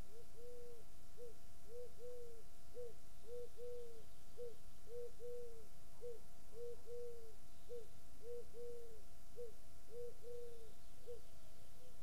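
A pigeon cooing a repeated three-note phrase, short-long-short, about every second and a half.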